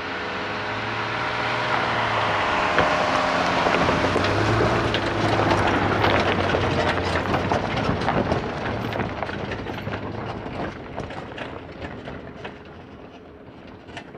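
Jeep Wrangler towing an off-road trailer driving slowly past over a rocky dirt track: the engine running at low speed, tyres crunching over loose stones, and the rig rattling. It grows louder as it comes near and then fades as it climbs away.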